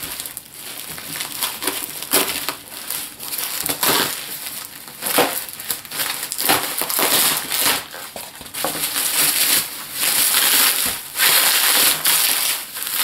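Bubble wrap and plastic packaging crinkling and rustling as a parcel is unwrapped by hand, an irregular run of crackles that grows louder in the last few seconds.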